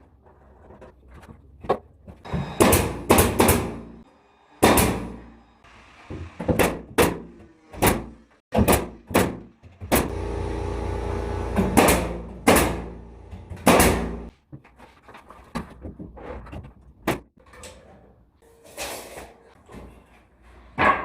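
A run of irregular knocks, bangs and thuds of interior renovation work, with a steady mechanical noise of about two seconds near the middle.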